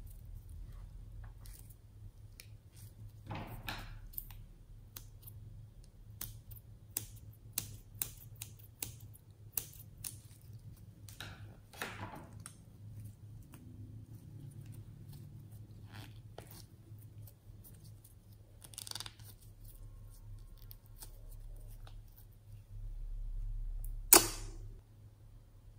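Putty slime being worked into store-bought slime by hand: slime squished and stretched with soft swishes and squelches, and many little crackling pops of trapped air. One sharp, louder click near the end.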